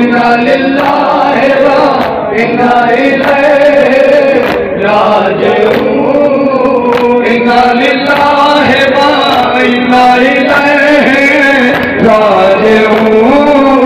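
A group of men chanting a Shia Muharram mourning lament in unison through a microphone and loudspeakers, drawing out long notes that rise and fall.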